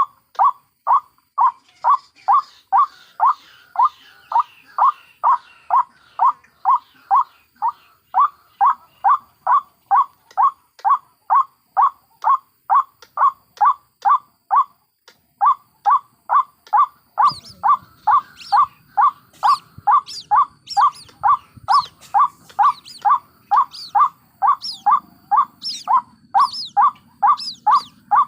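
White-breasted waterhen (ruak-ruak) calling a monotonous, fast string of repeated notes, about two and a half a second, with one brief pause in the middle. From a little past halfway, higher, sharper calls join in over the repeated notes.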